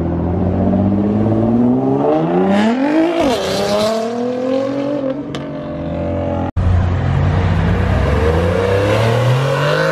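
Nissan GT-R twin-turbo V6 accelerating hard, engine pitch rising with a gear change about three seconds in, then climbing again and fading as the car pulls away. After an abrupt cut a little past halfway, a Porsche 911's engine runs and rises in pitch as it pulls out.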